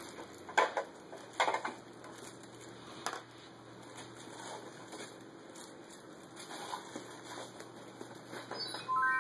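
Tissue paper and gift bags rustling and crinkling in short bursts as a toddler rummages through them. Near the end, a quick run of electronic tones steps upward in pitch.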